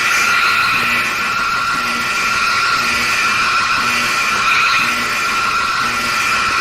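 Emergency broadcast alert tone: a loud, steady, shrill electronic tone with a short low beep repeating about once a second beneath it.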